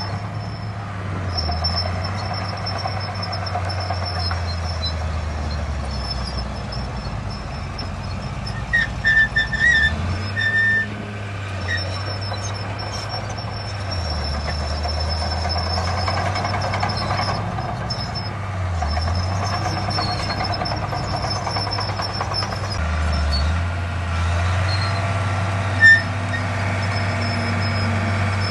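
Heavy diesel earthmoving machinery running, its deep engine note rising and falling several times as it works under changing load. A few short high-pitched tones sound about a third of the way in, and a single sharp one near the end.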